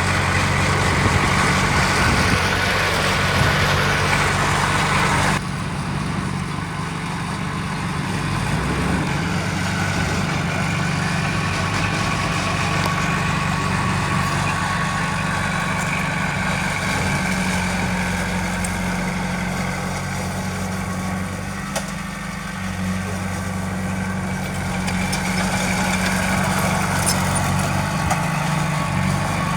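Heavy diesel earthmoving machinery running steadily with a low engine hum. The sound changes abruptly about five seconds in, when the upper hiss drops away.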